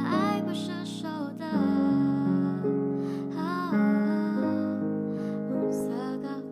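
Slow ballad music without sung words: sustained piano or electric-keyboard chords, with a gliding melody line above them.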